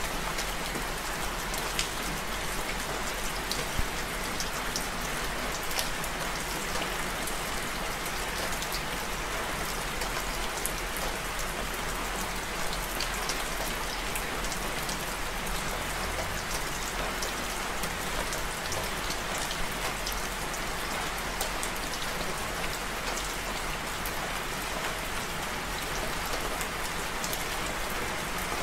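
Steady rain falling: an even hiss with many close drops ticking sharply through it.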